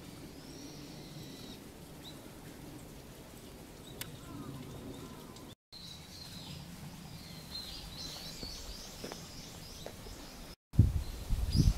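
Small birds chirping and calling over a faint outdoor hush, with a quick flurry of calls about two-thirds of the way through. Near the end a loud low rumbling and thumping takes over.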